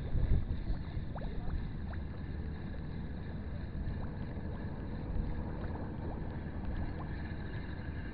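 A steady low outdoor rumble with a few faint, light ticks scattered through it.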